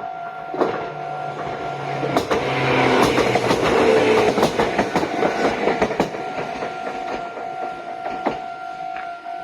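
Meitetsu Bisai Line electric train passing over a level crossing, its wheels clacking over the rail joints. The train is loudest from about two to six seconds in, under the crossing's warning bell, which rings steadily throughout.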